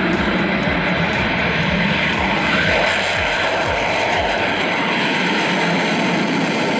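Airship sound effect: the steady drone of propeller aircraft engines.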